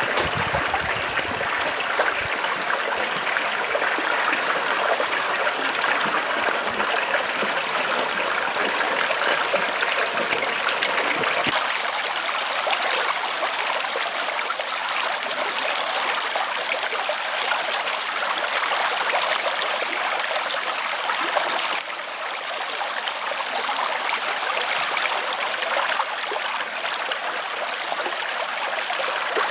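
Shallow creek running over pebbles and gravel: a steady rush and trickle of water, with a low rumble underneath that drops away about a third of the way in.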